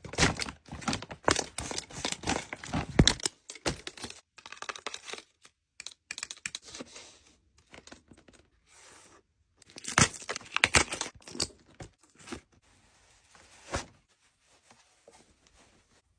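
Toy packaging being torn open and crinkled by hand: dense tearing and crackling in the first three seconds, sparser rustling after, and another burst about ten seconds in.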